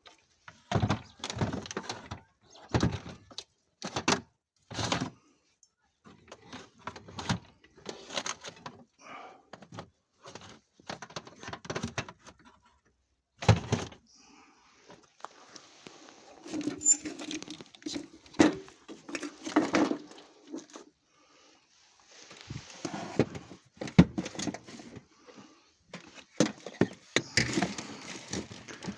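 An irregular series of knocks and thuds, some sharp and loud, with scraping or rustling between them.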